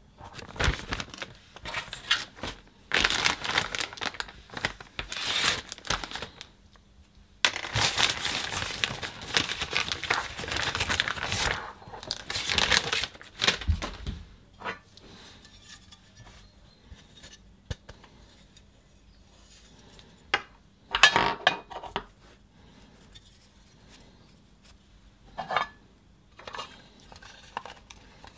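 Plastic service-parts bag being torn open and crinkled to take out a new foam air filter, in dense bursts over the first half. Then the hard plastic air-filter housing parts are handled, with a few sharp clatters.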